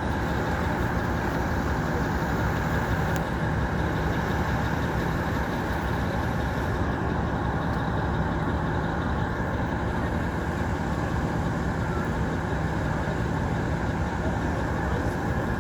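Tracked excavator's diesel engine running steadily, a constant low hum with no knocks or rock impacts.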